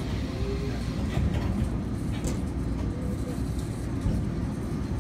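Taipei Metro C301 electric train running, a steady rumble of wheels and motors with a few light clicks.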